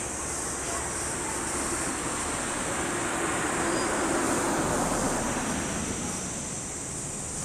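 A vehicle passing by: a smooth rush of noise that swells about three seconds in and fades again a couple of seconds later, over steady outdoor background noise with a constant high hiss.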